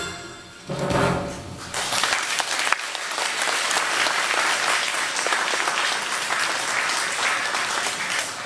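Audience applause after a song ends: a brief pitched sound about a second in, then steady clapping from many hands that begins to thin near the end.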